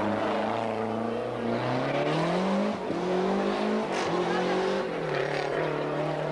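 Rally car accelerating hard past and away. Its engine note climbs, drops sharply at an upshift about three seconds in, climbs again, then shifts once more and holds steady near the end.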